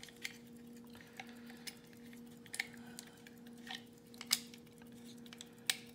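Scattered light metallic clicks and taps of lock-picking tools being handled at a lock cylinder, the sharpest about four seconds in and near the end, over a faint steady hum.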